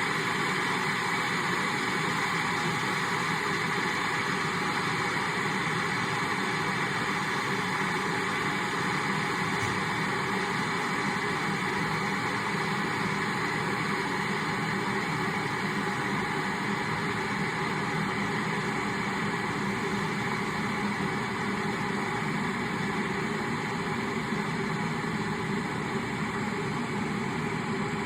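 Kettle boiling, a steady noise that holds even throughout.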